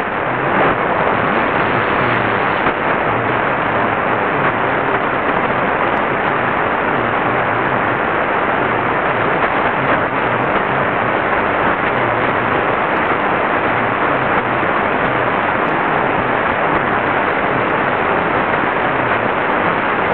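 Steady medium-wave static hiss from a Qodosen SR-286 portable radio's speaker, tuned to 720 kHz, with no speech or music coming through the noise.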